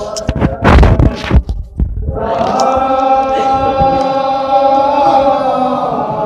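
A few loud thumps in the first two seconds, then a chorus of men's voices chanting a mourning recitation (nauha), holding one long steady note from about two seconds in.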